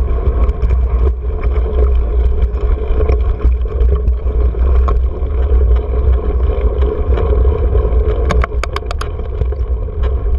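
Mountain bike riding a dry dirt trail, heard through a bike-mounted GoPro: a steady low rumble of wind buffeting the camera, with rattles and clicks from the bike over bumps, and a quick run of sharp clicks a little past eight seconds in.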